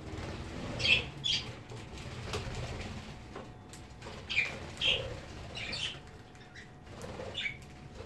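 Budgerigars flapping their wings as they fly in and land on a feeding tray, with about six short, sharp chirps, the loudest about a second in and twice near the middle.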